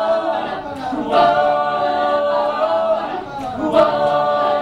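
Mixed-voice a cappella group singing in close harmony, holding chords on sung syllables, with new phrases starting about a second in and again near the end.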